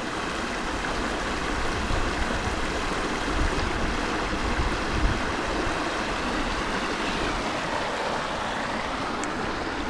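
Dense, steady chorus of many frogs calling together, a continuous even hiss of calls with no single call standing out.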